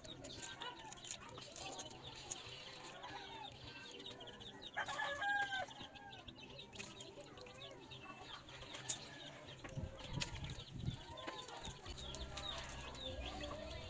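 Chickens clucking faintly, with one louder call about five seconds in. Light clicks and small water sounds of hands handling sea urchins in a basin of water.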